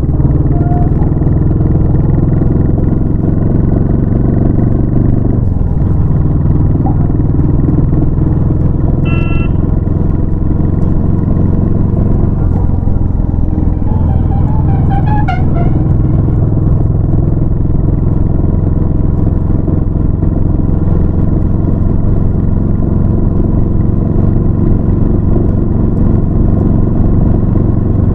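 Royal Enfield Classic 350's single-cylinder engine running steadily as the motorcycle is ridden, its pitch shifting once about five to six seconds in. A short horn beep sounds about nine seconds in, and a warbling tone rises over the engine a few seconds later.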